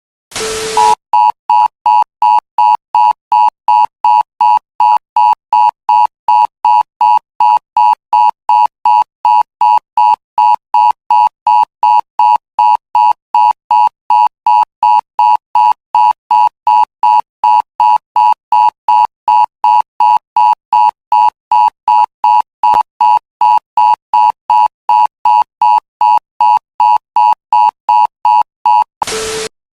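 Emergency alert attention tone: a loud electronic beep near 1 kHz pulsing about twice a second, opened and closed by a short burst of static.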